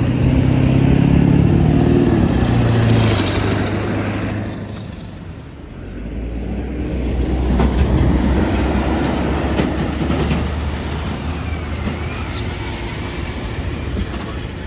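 Freight train passing, its sound dropping in pitch and fading away over the first five seconds. Then a heavy truck's diesel engine runs steadily as a flatbed semi crosses the tracks.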